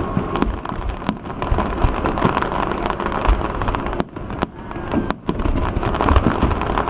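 Aerial fireworks display: low booms and sharp cracks of shells bursting one after another over a steady din.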